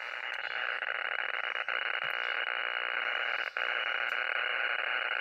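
Steady raspy interference noise from an amateur radio receiver's speaker, filling the receiver's audio passband up to about 3 kHz, with two brief dropouts. It is radio-frequency interference heard on many bands and more than one antenna. It stays with the house's power switched off, and the operator guesses it may be aurora.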